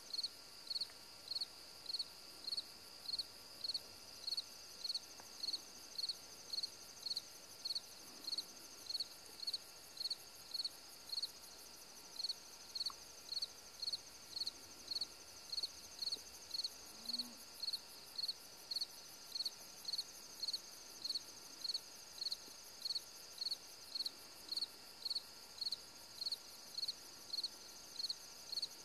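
Evening insect chorus: a steady high trill, with a louder chirp repeating evenly about three times every two seconds.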